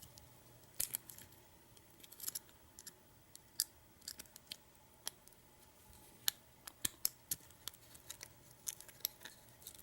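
Lock pick and tension wrench working the pins of a pin-tumbler U-Haul disc padlock: faint, irregular small metallic clicks and ticks, a few each second.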